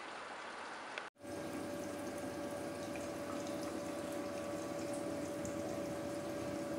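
TX-H3000B hydrogen inhalation machine running in hydrogen mode at full gas production: a steady watery bubbling and trickling from inside it. After a brief gap about a second in, a steady hum joins.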